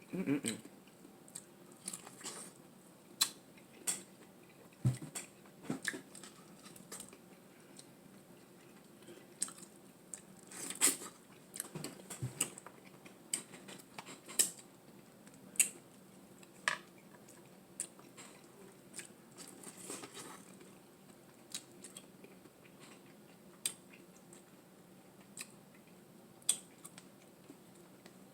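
Close-miked eating sounds: a person biting and chewing, with irregular wet clicks and smacks of the mouth, a few at a time.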